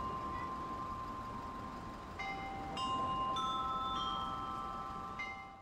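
Bells on a large public chiming clock ringing a slow melody: single clear notes struck about every half second, each ringing on under the next.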